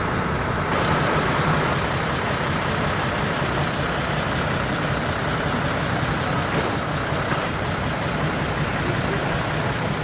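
Diesel engine of a decorated Japanese art truck (dekotora) idling steadily through a manifold-split (マニ割り) exhaust, with no revving. A faint, fast, even ticking runs high above it.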